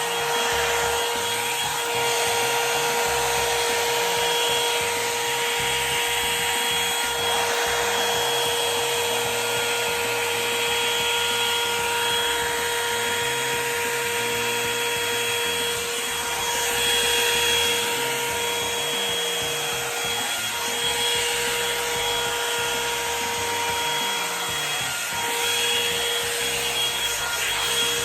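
Revlon One-Step hair dryer brush running steadily: a loud rush of air with a steady motor whine, held at one setting. Its level swells a little now and then.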